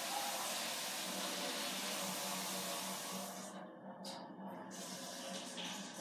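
Water running from a tap, a steady rushing hiss that thins out briefly about midway and then comes back less evenly.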